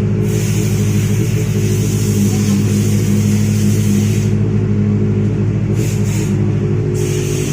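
Benelli motorcycle engine idling steadily. A steady hiss runs over it, stops about four seconds in and comes back in two short spells near the end.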